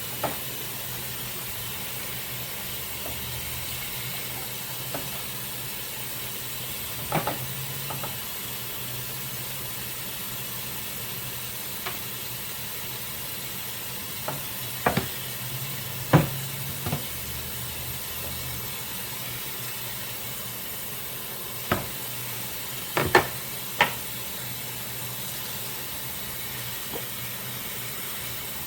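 Dishes being washed by hand in a sink: a steady hiss of water, with dishes and utensils clinking and knocking against each other now and then, the sharpest knocks about halfway through and again a few seconds later.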